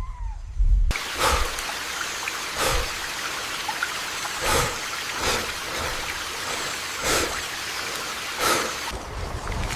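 Heavy tropical rain and rushing water: a steady hiss with brief louder surges every second or so. It is framed by a low rumble that cuts off abruptly about a second in and returns near the end.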